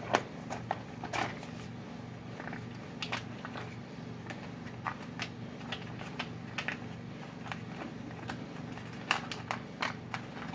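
Small brake-line plugs clicking and rattling in a clear plastic plug-kit case as it is picked through, in scattered irregular clicks and light knocks, over a steady low hum.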